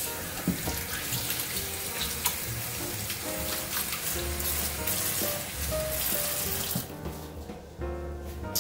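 Water running from a kitchen tap into the sink while hands are washed, turned off about seven seconds in.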